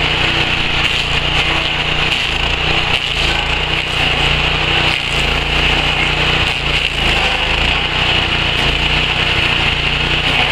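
Alpha 13 hp stump grinder running steadily, its small petrol engine humming while the cutter wheel grinds into a tree stump. A high grinding hiss rides over the engine, with scattered short knocks as the teeth bite the wood.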